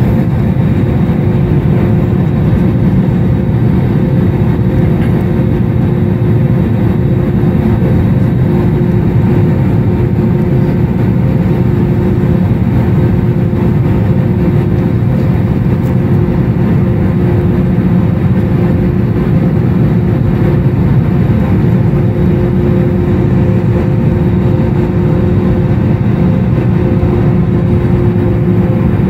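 Cabin noise inside an Airbus A320neo taxiing: a steady, loud rumble with a droning hum over it, the engines at taxi thrust and not yet spooled up for takeoff.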